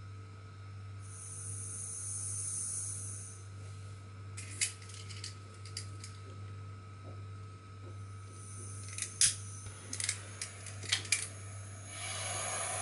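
BST-100 butane pen-type gas soldering iron: gas hissing out of the tip, several sharp clicks as it is being lit, then a small blue flame catches near the end and burns with a steady hiss.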